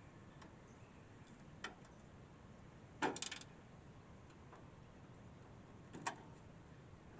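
A few sharp clicks and clatters from a screwdriver and screws working on a window air conditioner's cover: a short rattling cluster about three seconds in, the loudest, and another click about six seconds in.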